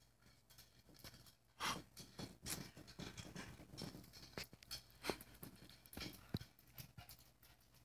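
Small dog's claws clicking and scrabbling on a tile floor and a bar stool as it shuffles about on its hind legs: a faint, irregular run of taps, a few of them louder.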